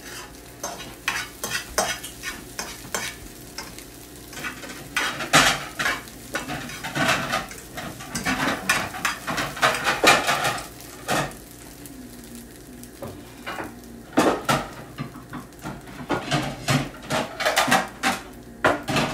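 A fork scraping and clicking against a nonstick frying pan as scrambled eggs are stirred and broken up, in bursts of quick strokes. The strokes pause for a couple of seconds past the middle, then resume.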